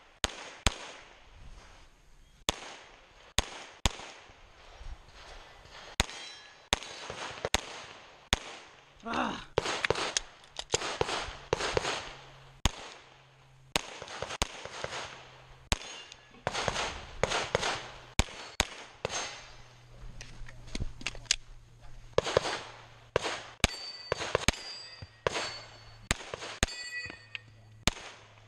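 9mm Glock 34 pistol shots fired in quick pairs, string after string, during a USPSA stage, each crack trailed by a short echo. Near the end some shots are followed by a brief metallic ring, steel targets being hit.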